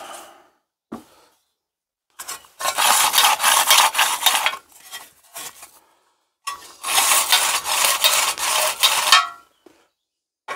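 Rasping rub, twice, about two seconds each, as a small Tecumseh engine's freshly oiled recoil starter is worked by hand. A brief squeak comes at the end of the second stretch.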